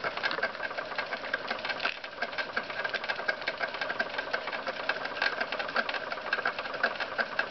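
Wilesco D8 toy steam engine running steadily at speed under live steam, its cylinder and flywheel making a fast, even ticking clatter. It is belt-driving a tin toy watermill.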